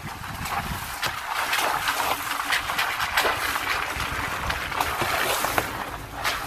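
Vehicle tyres rolling slowly through wet mud and gravel on a dirt track: a steady wet hiss with many small clicks and ticks of stones and grit.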